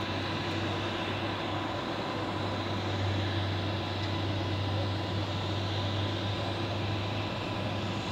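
Boeing 777-300ER's GE90 turbofan engines running in a steady jet rumble, with a thin steady whine over it, as the airliner rolls out on the runway after landing.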